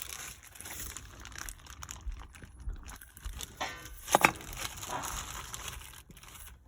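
Rustling and shuffling handling noise as parts are picked up and moved, with one sharp knock a little past four seconds in.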